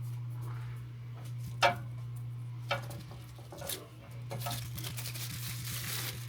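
Hard parts of a coffee machine being handled: a few clacks and knocks, the loudest a little under two seconds in, then about two seconds of rustling, over a steady low hum.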